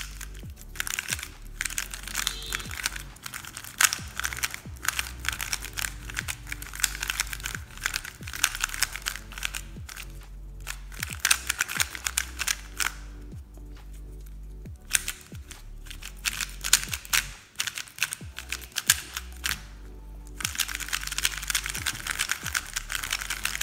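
MoYu RS3M 2020 Elite magnetic 3x3 speedcube, heavily lubed, being turned in quick runs of moves: a dense rattle of plastic clicks and clacks from the layers, broken by a few brief pauses. Background music plays underneath.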